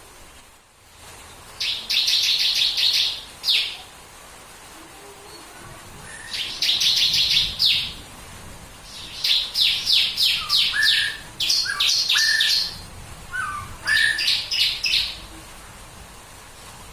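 Ciblek (bar-winged prinia) singing in bursts of rapid, high, repeated notes, its 'tembakan' song: five volleys of about a second each, with short pauses between. A few short, lower rising whistled notes are mixed in around the middle.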